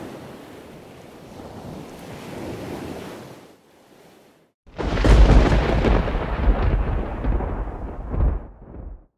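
Steady surf and wind noise. About four and a half seconds in, after a short gap, a sudden loud rumbling crash starts and dies away over about four seconds.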